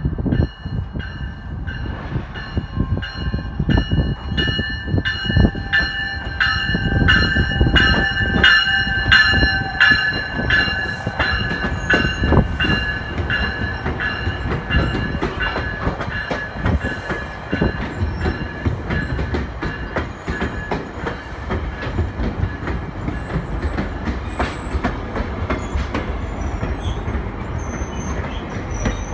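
GO Transit bilevel commuter train running into the station past the platform, its wheels rumbling and clacking over the rails. The train's bell rings about twice a second through the first twenty seconds or so. Short high-pitched wheel squeals come in near the end.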